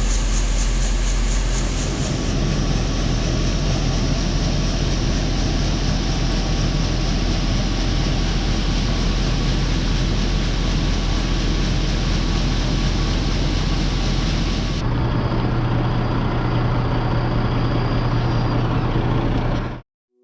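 Heavy harvest machinery running steadily, a continuous engine and machine noise. Its character changes abruptly about 2 s and about 15 s in, and it cuts off suddenly just before the end.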